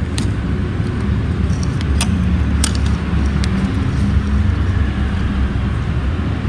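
A steady low rumble with a few sharp, light metallic clicks as the overlock machine's looper area is handled with tweezers during threading.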